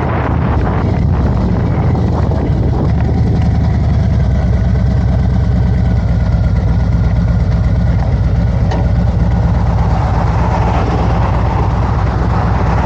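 Harley-Davidson Road Glide's V-twin engine running steadily with an even low pulse.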